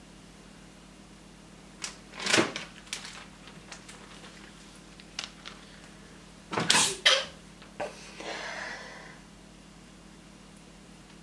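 Plastic packaging of sliced sausage crinkling and rustling as it is handled and opened, in sharp bursts about two and seven seconds in, then a softer rustle a second later.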